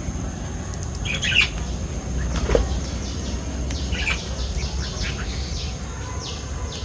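Pet birds giving short squawks and chirps, spaced about a second apart, over a steady low rumble.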